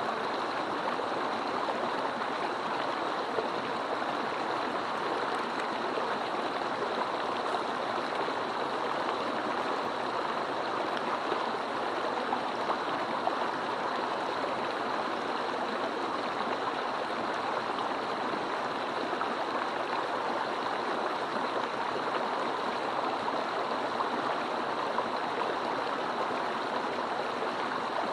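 Mountain stream rushing and gurgling over rocks in a steady, even flow.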